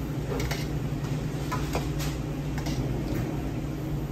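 Metal ladle clinking against a stainless steel pot and a ceramic bowl as soup is ladled out: scattered light clicks over a steady low hum.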